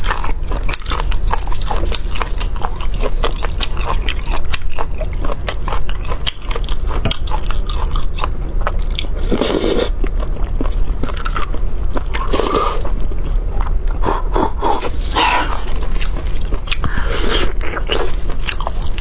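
Close-miked wet chewing, lip smacking and sucking of braised beef bone marrow pulled from the bone, with several louder slurps about halfway through and in the second half, over a steady low hum.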